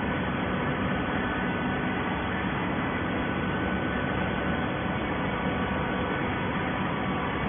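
Baler machine running: a steady mechanical noise with a faint hum and a few faint steady tones.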